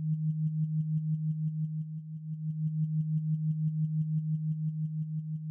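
Background music: a low synthesized drone pulsing evenly about eight times a second, with faint high ticks over it.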